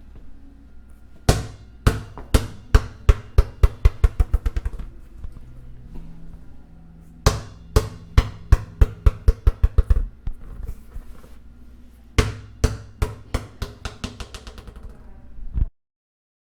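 A ball bouncing and coming to rest, heard three times over: each run of hits starts with a loud strike, then the bounces come faster and quicker together, fading out as they settle.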